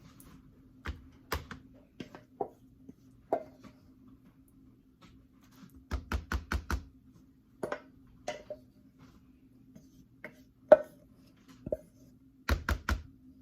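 Kitchen prep knocks and taps: utensils and dishes striking a counter or board. There are scattered single taps, then two quick runs of about five strikes in under a second, one near the middle and one near the end, over a faint steady hum.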